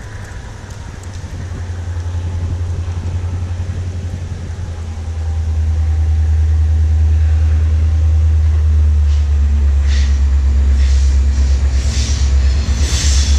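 Diesel locomotive approaching, its engine's low rumble growing louder about five seconds in. From about nine seconds on, sharp clicks from the track come roughly once a second and grow stronger as it nears.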